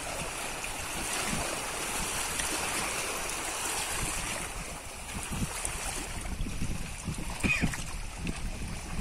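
Small lake waves lapping against a rocky shore, mixed with wind on the microphone. Through the second half, irregular low thumps come and go.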